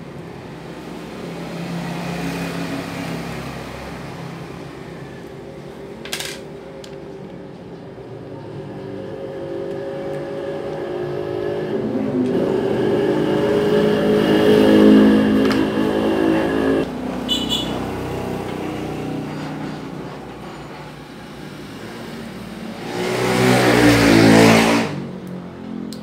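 Motor vehicle engine noise passing by, rising and fading twice, loudest around the middle and again near the end. A single sharp click about six seconds in.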